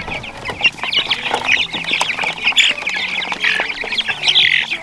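A flock of young broiler chickens peeping and cheeping together, with many short, high calls overlapping all the time.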